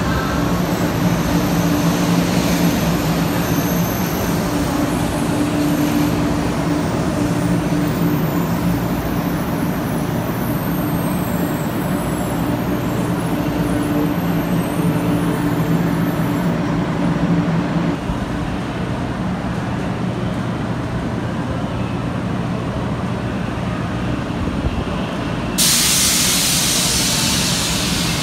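A 500 series Shinkansen (the Hello Kitty train) pulling into a platform: the steady hum of its motors and the rolling of its wheels die down as it comes to a stop, about 18 seconds in. About 25 seconds in a sudden, steady hiss of air being let out starts and carries on.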